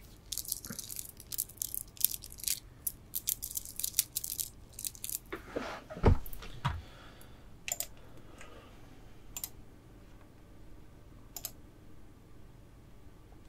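Gemstone bead bracelets handled close to the microphone, the stone beads clicking and clattering together in a quick run for about five seconds. A dull thump follows about six seconds in, then only a few scattered clicks.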